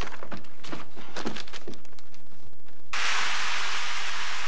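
A few soft clicks and rustles, then about three seconds in a loud steady hiss starts abruptly.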